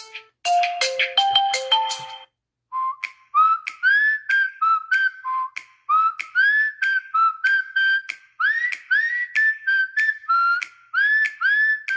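Huawei P30 Lite ringtones: a plucked-note melody ends about two seconds in, and after a short gap a new ringtone starts. The new one is a quick, whistle-like melody of short notes that each slide upward, each opening with a click.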